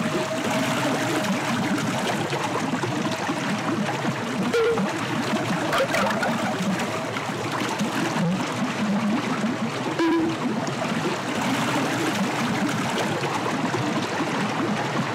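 Recorded river water trickling and flowing, played back as part of a piece composed from the sounds of a river, with a few short pitched notes here and there.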